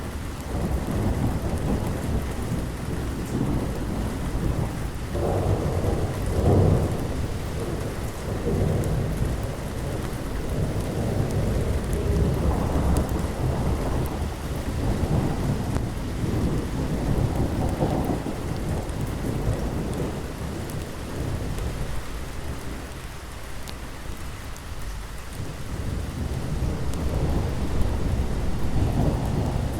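Thunderstorm: steady heavy rain with rolling thunder that swells and fades in repeated low rumbles, easing for a few seconds about three-quarters of the way through before building again.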